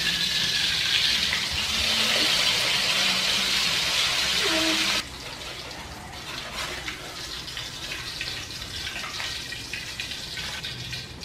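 Hot oil sizzling in a wok as a whole fish fries, a dense, steady hiss that drops suddenly to a softer sizzle about five seconds in.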